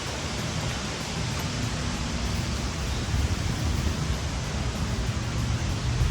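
Wind buffeting the microphone outdoors: a steady rushing hiss over an uneven low rumble.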